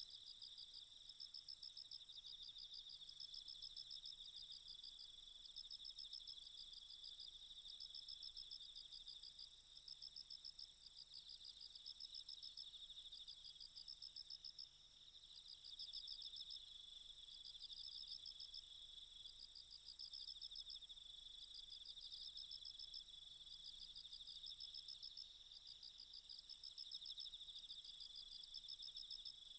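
Faint chorus of singing insects such as crickets: a steady high shrill trill, with a pulsing chirp above it that comes in bursts of about a second, over and over.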